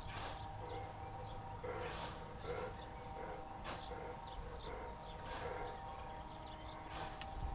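Scythe blade swishing through grass in a steady mowing rhythm, one stroke about every one and a half to two seconds, five strokes in all. Small birds chirp in between.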